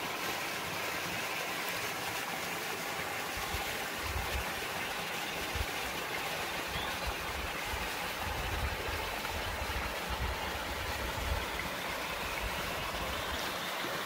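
Mountain stream and small waterfall in a rocky gorge: a steady rush of flowing water, with irregular low rumbling through the middle.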